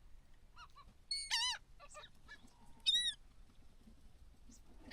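Wild birds over the marsh calling: a short pair of calls, then two louder arched, rising-and-falling cries about a second and three seconds in.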